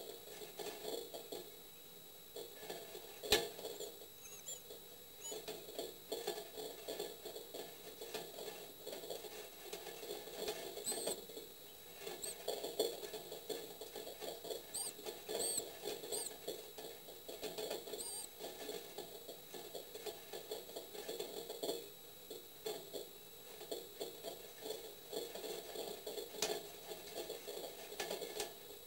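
Tit nestlings shuffling in the nest cup inside a nest box: a constant scratchy rustle of nest material, with a few faint, high, short peeps about halfway through and one sharp click a few seconds in.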